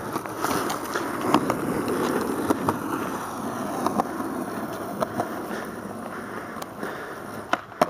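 Skateboard wheels rolling on a concrete driveway: a steady rolling rumble with a few short clicks as the wheels cross joints and grit.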